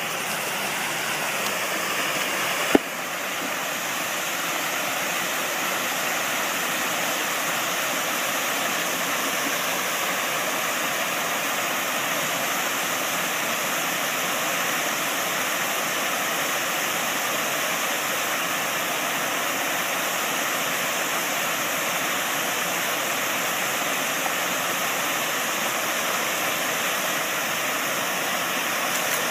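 Steady rushing of a waterfall cascading over a stone weir into a pond, with a single sharp click about three seconds in.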